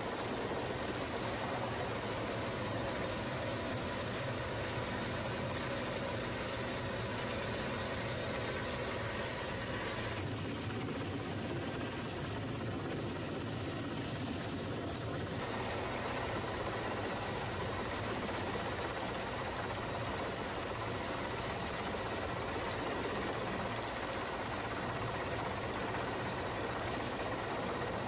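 Helicopter turbine and rotor noise, a steady mechanical drone. From about ten to fifteen seconds in, the sound turns duller, losing its upper hiss.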